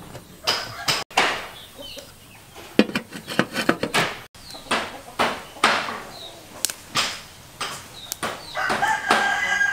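Chickens clucking in short, repeated calls, with a longer drawn-out call in the last second.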